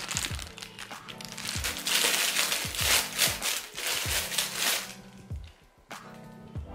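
Crinkling of clear plastic packaging as it is handled and opened. It is loudest for a few seconds and stops about five seconds in. Background music with a steady beat runs underneath.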